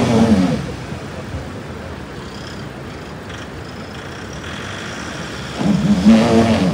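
Stuck truck's engine revving under load as it tries to pull out of deep mud. It swells to two louder surges, one at the start and one about five and a half seconds in, with a steady lower running sound between.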